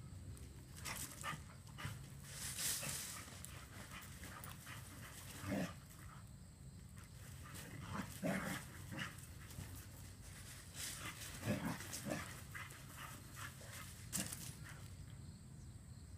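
Beagles playing and chasing, with scattered short dog sounds and panting over the rustle of their running.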